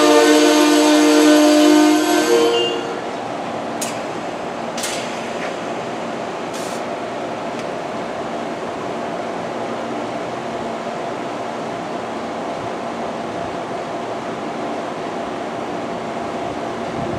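Amtrak passenger train's brakes squealing in a loud whine of several tones as the cars draw to a stop, cutting off about three seconds in. Then the stopped train gives a steady hum, with a few faint clicks.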